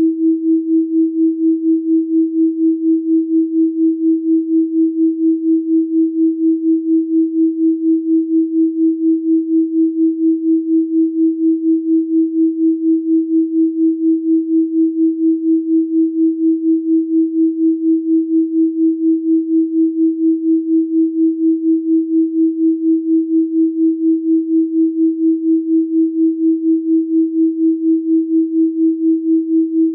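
Steady electronic sine tone at 324 Hz, pulsing evenly in loudness about two to three times a second.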